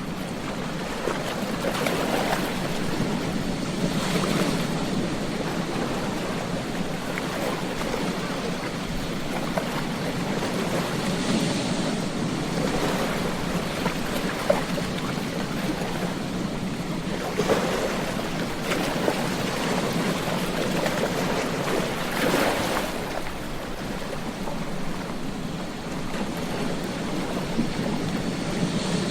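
Ocean surf on a beach: a steady wash of water with waves breaking every few seconds, the louder breaks about 2, 4, 11, 17 and 22 seconds in.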